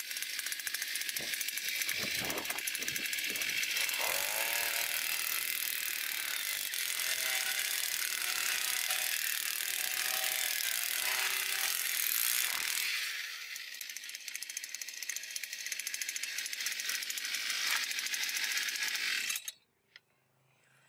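Single-cylinder 49.9 cc two-stroke petrol earth auger running under throttle as it bores into hard, dry soil. It gets somewhat quieter about two-thirds of the way through, then cuts off suddenly near the end.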